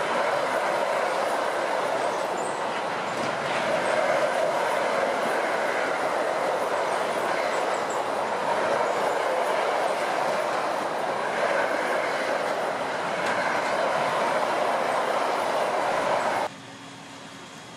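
Freight train of empty double-deck car-carrier wagons rolling past at speed: a loud, steady rolling noise of wheels and wagons. The noise cuts off suddenly near the end, leaving a much quieter background with a low steady hum.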